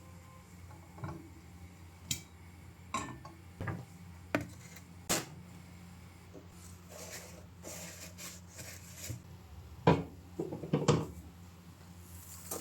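Household objects being handled and set down: a scattering of light clinks and knocks, with the two loudest about ten and eleven seconds in.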